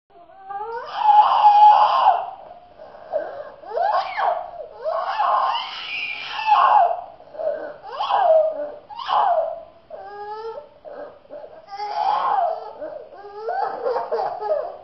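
A young child's loud, repeated vocal outbursts, about ten in all, each rising and falling in pitch, with short pauses between them.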